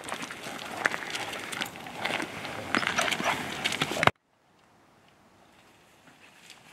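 Scuffing and rustling with scattered clicks as a handler and leashed dog move on a gravel path. It cuts off suddenly about four seconds in, leaving only a faint hiss.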